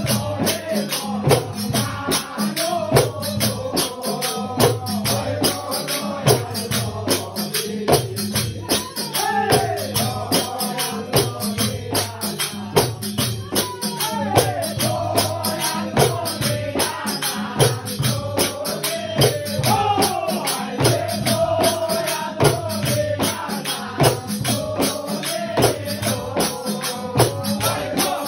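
Men singing a Sufi devotional song with a wavering lead melody, over rattling percussion that keeps a fast, steady beat.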